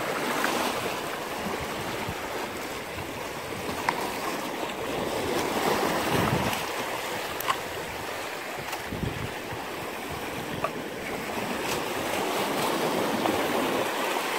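Small sea waves washing and splashing over shoreline rocks, the surf swelling and easing in surges, with wind buffeting the microphone. A few light clicks stand out over the wash.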